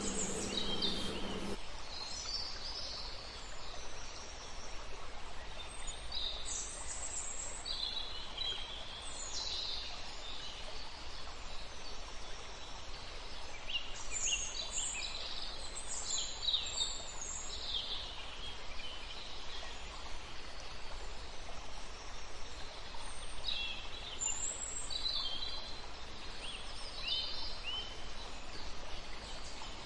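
Small birds chirping and calling intermittently over a steady background hiss, with a low hum in the first second and a half.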